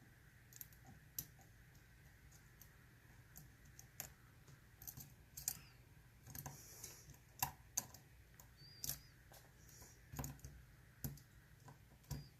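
Faint, irregular small clicks and taps of a lock pick working the pins inside a Mul-T-Lock Interactive dimple padlock during single-pin picking, the lock not yet open.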